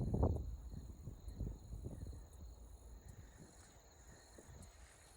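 Faint outdoor roadside ambience with a steady high insect drone. A brief low rumble on the microphone at the start fades out within the first half second.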